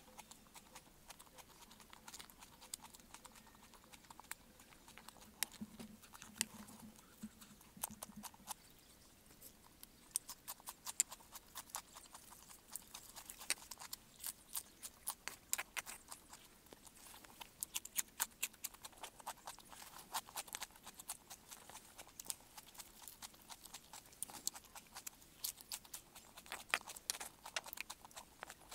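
Eating: crunching bites and chewing of raw green vegetables, with irregular sharp clicks throughout and a metal spoon scraping a bowl of rice.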